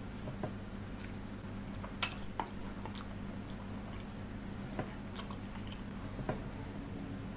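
Fingers squishing and mixing rice with chicken-feet curry on a steel plate, a wet squelching with a handful of sharp clicks from about two seconds in, over a steady low hum.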